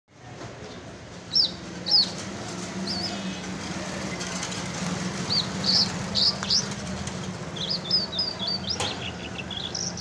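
Caged lark singing: short, high, sharp chirping notes, scattered at first, then a quicker run of notes near the end. A steady low hum runs underneath.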